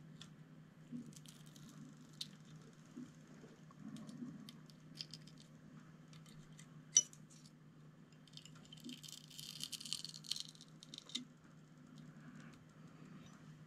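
Small screwdriver prying and scraping at a coin-cell memory backup battery stuck down to a radio's circuit board: faint scattered clicks and scratches, one sharp click about seven seconds in, and a stretch of scraping from about eight and a half to eleven seconds, over a low steady hum.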